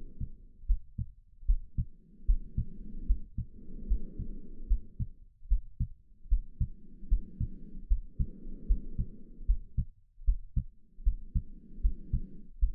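A steady heartbeat of regular low, muffled thumps, with slow breathing over it: a soft rushing swell rises and falls about every two seconds.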